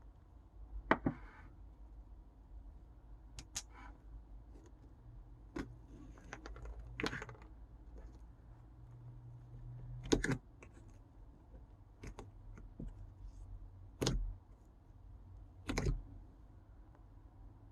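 Slime being pressed and pulled by hand, giving off scattered sticky clicks and pops a few seconds apart, the loudest about a second in and around ten, fourteen and sixteen seconds in.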